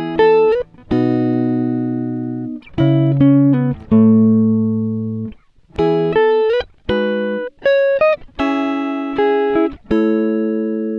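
Background music: a clean-toned guitar playing plucked chords and short melodic phrases, the notes ringing and fading, with a few sliding notes.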